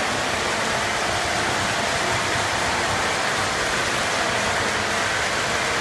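Lionel O-gauge model trains running on three-rail metal track: a steady whirring rumble of motors and wheels that does not let up.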